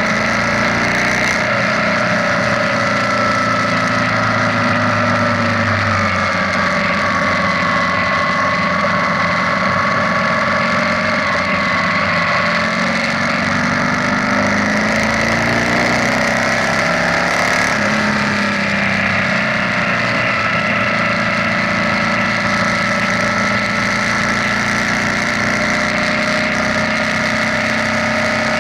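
BMW R nineT's boxer twin engine running under way, its note sliding down and back up a few times as the throttle changes, over steady wind and road noise.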